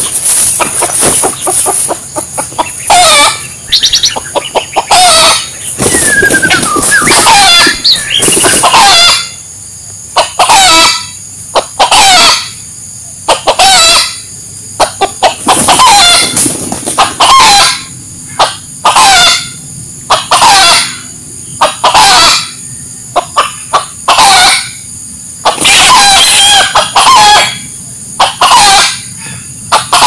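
Rooster crowing and clucking over and over, in short loud calls that come every second or two from about a third of the way in.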